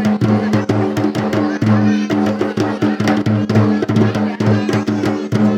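Background music with a steady, quick drum beat over held low notes.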